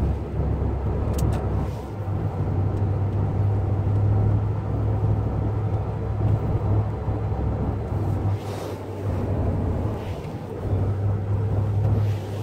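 Steady low rumble of a car running, as heard from inside, with a deep hum that comes and goes.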